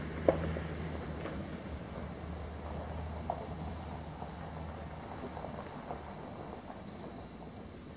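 Crickets trilling steadily in two high, even tones, with a sharp snap just after the start and a couple of fainter snaps or knocks later.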